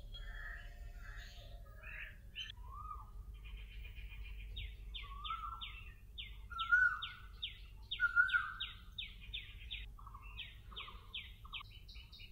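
Birds calling: a long run of short, quickly repeated chirps, about three a second, starting a few seconds in, with a few lower whistled notes among them.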